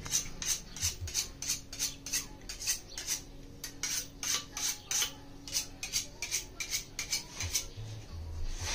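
A knife scraping in quick, even strokes, about four a second, stopping a second or so before the end.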